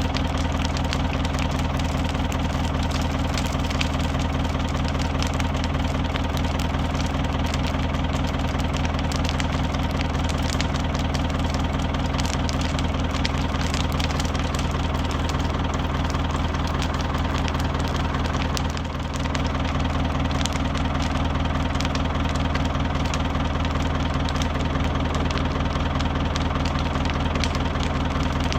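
Manitou telehandler engine idling steadily with an irregular popping.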